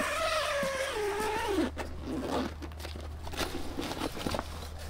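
270° roof-rack awning being swung open by hand: a long creak that falls in pitch for under two seconds, then scattered rustles and light clicks from the fabric and frame.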